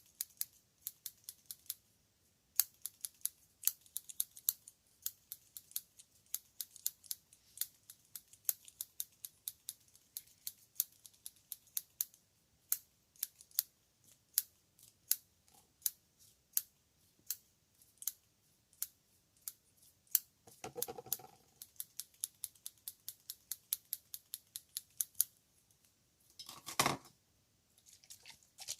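Scissors snipping in quick succession, about three crisp snips a second. A brief rustle comes twice in the latter part.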